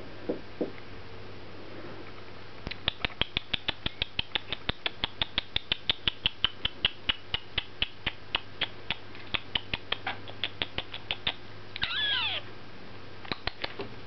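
Cockatiel chirping in a long rapid run of short high notes, about four a second, then a single falling squawk and a few last chirps near the end.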